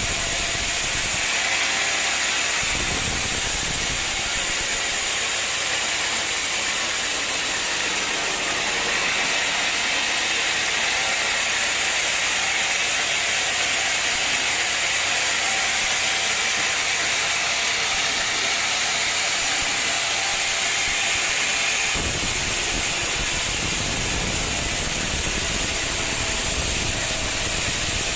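Sawmill machinery running steadily with a continuous hissing noise, as of a saw working through a log. A deeper rumble joins in about two-thirds of the way through.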